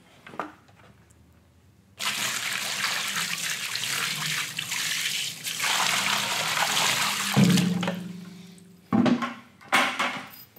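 A bucket of water poured into a wheelbarrow tub onto flood bags: a steady splashing pour starting about two seconds in and lasting about five seconds. A few sharp knocks follow near the end.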